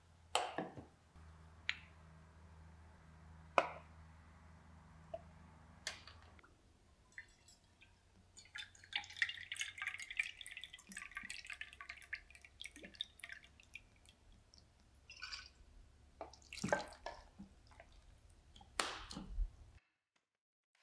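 Water dripping and splashing, with a few separate sharp knocks and a dense run of fast, crackling clicks through the middle.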